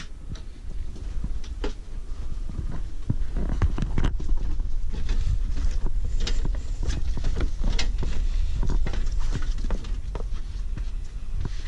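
Irregular footsteps, knocks and scuffs of someone moving about and handling things, over a heavy low rumble on the camera's microphone.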